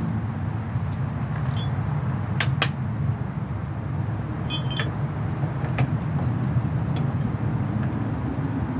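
Hand tools and metal parts clinking and ringing briefly a few times, as when loosening bolts to drop a driveshaft, over a steady low rumble.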